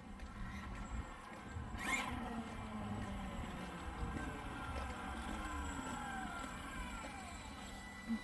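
Brushless electric motor of a 1/5-scale RC monster truck whining at a distance, the whine gliding down in pitch several times as the truck slows. A sharp knock about two seconds in is the loudest sound.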